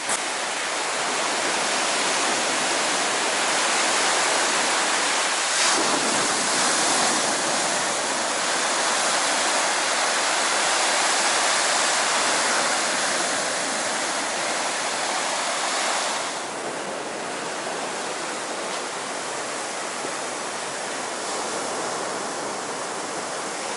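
Rough storm surf breaking and washing up a sandy beach, a steady loud roar of waves; it drops a little in level about sixteen seconds in.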